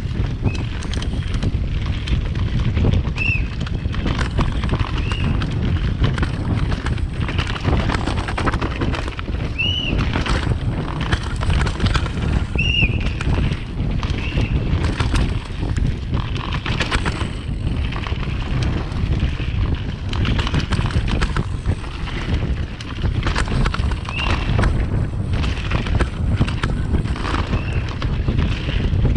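Downhill mountain bike ridden fast over a dirt trail: a steady rush of wind on the microphone mixed with the constant rattle and clatter of the bike over the rough ground, with a few short high squeaks along the way.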